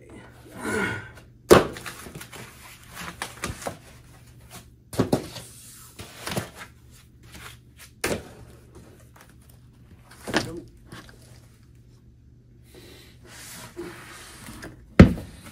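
Cardboard packaging being handled and pulled from a box, with a series of sharp knocks and thuds from the steel standing-desk frame against the cardboard. The loudest thud comes near the end as a frame leg is lifted.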